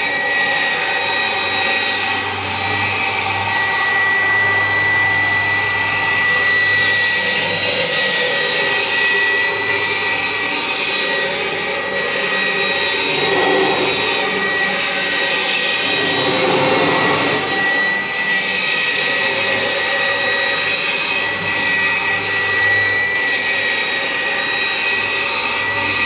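Kirby G4 upright vacuum cleaner with a 10-blade aluminium fan, running on carpet. It makes a steady high whine over a lower drone, and the sound shifts a little as the vacuum is pushed back and forth.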